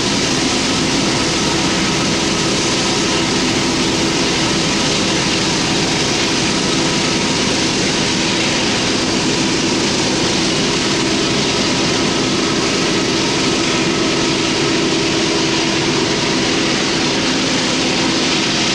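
Rear distributed-power diesel locomotives of a heavy loaded coal train, an EMD SD70ACE with a GE AC44C6M, working hard up a grade: a loud, steady howl of held tones over a dense engine drone.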